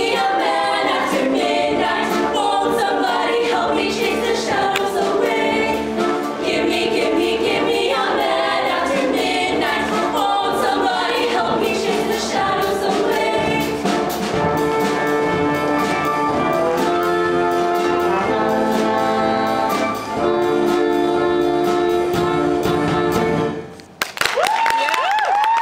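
All-female show choir singing an upbeat number over brass-heavy accompaniment. About 24 seconds in the full ensemble drops out and a single female voice sings a long note that slides up and down.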